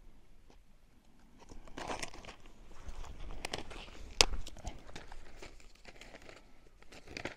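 Irregular rustling and crunching, like things being handled or stepped on close to the microphone, with one sharp click about four seconds in.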